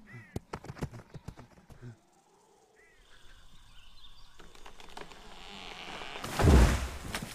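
Cartoon sound effects: quick clicks and short chirps, then a rising whoosh that swells into a loud burst about six and a half seconds in.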